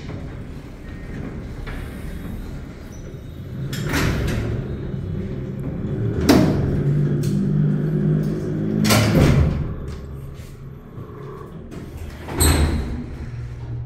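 Kone traction freight elevator's power doors and gate closing while the close button is held: a low mechanical rumble with loud clanks and bangs, four of them spread through, the last near the end.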